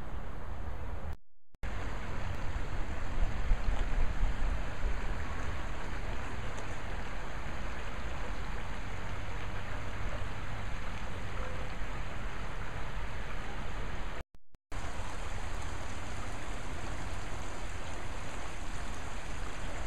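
Steady rushing of a flowing stream, with a stronger low rumble a few seconds in; the sound drops out briefly twice.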